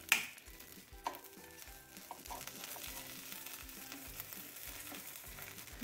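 A wooden spatula knocks sharply against the ridged plate of an electric sandwich griller, with a lighter knock about a second later. A faint, steady sizzling hiss follows as the toasted sandwich is lifted off the hot plate. Quiet background music plays underneath.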